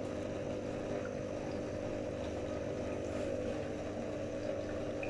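A steady mechanical hum, with a few held low tones over an even background noise.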